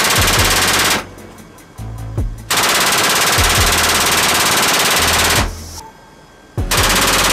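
Ramp-mounted machine gun on a V-22 Osprey firing in rapid automatic bursts: a short burst at the start, a long burst of about three seconds from about two and a half seconds in, and another short burst near the end.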